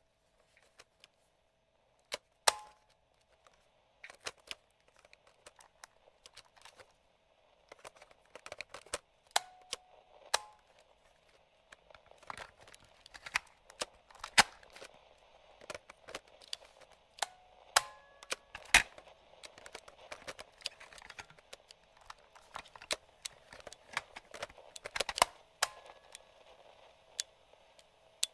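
Switches and buttons on a vintage radio-cassette player clicking irregularly, some clicks much sharper and louder than others. Faint radio static runs underneath and grows heavier about halfway through.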